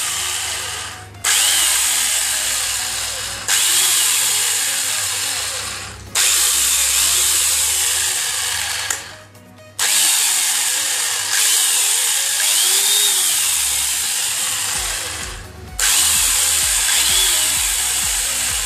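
Electric angle grinder fitted with a chainsaw bar-and-chain attachment, test-run in repeated short bursts: it cuts in abruptly, runs for two to four seconds, then winds down, about five times. The chain is set slightly slack so that it shakes a little, as it should.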